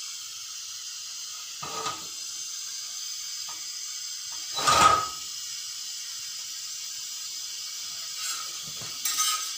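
Gas stove burner hissing steadily under a tawa, with steel tongs knocking against the tawa a few times, loudest about halfway through, as a roti is turned and lifted onto the flame.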